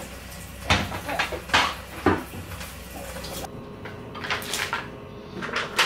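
Kitchen tap running over grocery packets being rinsed in a steel sink, with a few sharp knocks as they are handled. The running water stops about three and a half seconds in, and a few light knocks of items being set down follow.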